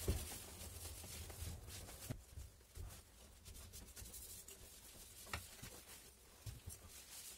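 Faint rubbing of a cloth rag wiping the painted steel body and valve head of an empty fire extinguisher, with a few light knocks as the cylinder is handled.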